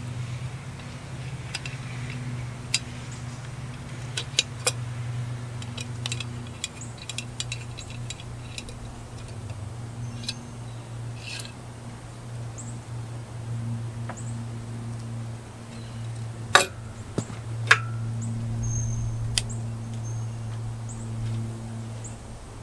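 Light metallic clicks and clinks of a hand tool, screws and the muffler being handled as the exhaust is taken off a Husqvarna 350 chainsaw, with two sharper clicks about two-thirds of the way in. A steady low hum runs underneath.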